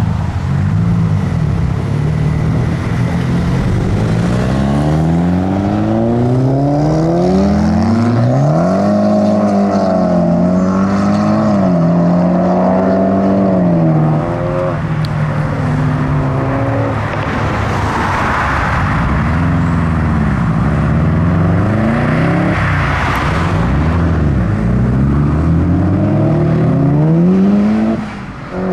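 Modified cars' engines revving and accelerating away one after another, each note climbing through a gear and dropping at the change. Two short bursts of hiss come about two-thirds of the way through.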